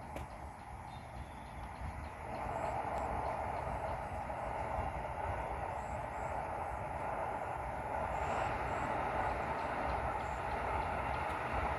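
Distant CC 201 diesel-electric locomotive, a GE U18C type, approaching along the line. Its engine and wheel noise come in about two seconds in and grow steadily louder as it draws nearer.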